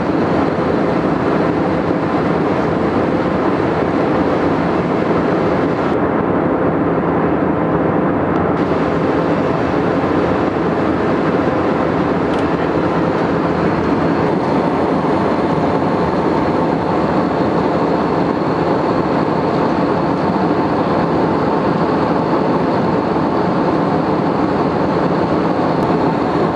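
Steady cabin roar of an Airbus A320 in cruise flight, the even rush of airflow and engine noise heard from inside the cabin, with a faint steady hum on top.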